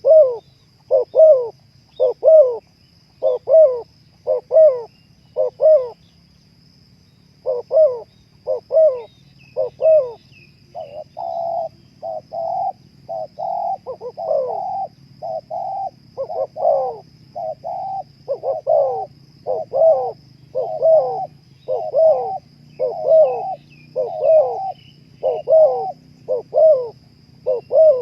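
Spotted dove (terkukur) cooing over and over in quick repeated notes, with a short break about six seconds in and longer, level coos from about eleven to sixteen seconds. A faint steady high whine and a few small bird chirps lie behind it.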